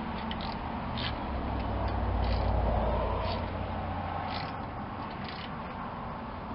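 A few separate metallic clicks of a socket wrench and tools on the winch bumper's mounting bolts, over a steady low rumble that swells for a couple of seconds around the middle.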